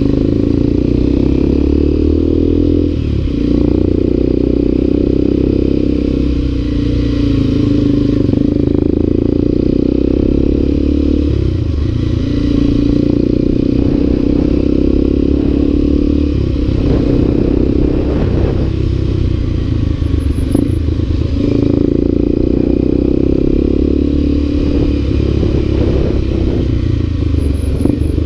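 Motorcycle engine running as the bike rides along at low speed. The engine note is steady but dips briefly several times, about every three to five seconds, then picks up again.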